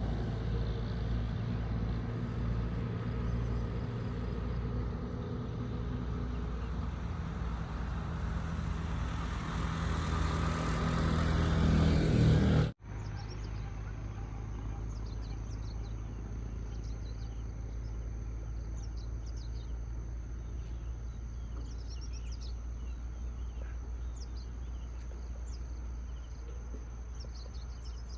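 A motor vehicle's engine hum with steady low tones that grows louder, then cuts off suddenly about halfway through. After the cut, outdoor ambience follows: a constant high insect buzz with scattered bird chirps over a low rumble.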